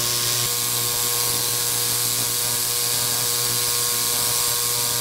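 Central Machinery ultrasonic cleaner running a cleaning cycle: a steady, loud electric buzz with a hiss over it, from the transducers cavitating a solvent bath of WD-40 and mineral spirits in a polycarbonate tub that holds pistol parts.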